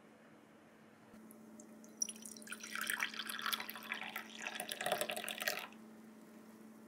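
Coffee poured from a glass carafe into a ceramic cup on a saucer: a splashing trickle that starts about two seconds in and stops after about three and a half seconds.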